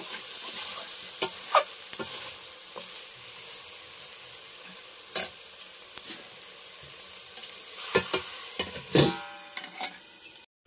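Chicken curry sizzling in a hot iron kadai, with a metal spatula scraping and clicking against the pan now and then. Near the end a steel lid goes on with a loud knock and brief metallic ringing.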